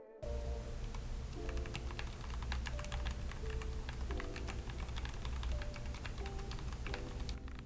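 Typing on a Redragon Lakshmi K606R mechanical keyboard modded with Krytox-lubed Outemu red switches and O-rings: a steady stream of rapid key presses, with background music underneath.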